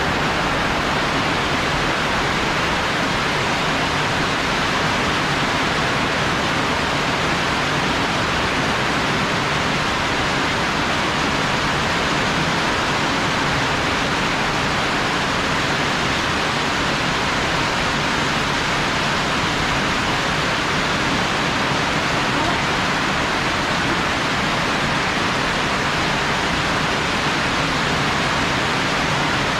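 Heavy rain pouring down in a rainstorm: a steady, unbroken hiss.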